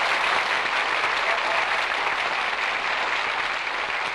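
Studio audience applauding, heard on an old radio transcription disc recording, the applause slowly dying down.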